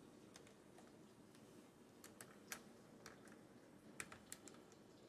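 A handful of faint, irregular light clicks and taps from a laptop being worked on by hand, most of them after about two seconds in, over quiet room tone.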